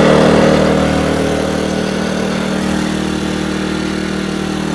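An engine idling steadily with an even hum.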